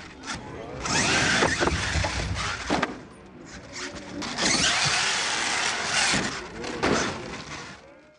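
Radio-controlled monster truck driven hard on loose gravel, with two bursts of throttle: one about a second in and a longer one from about four to seven seconds in. The motor whines up in pitch and the tyres spray gravel.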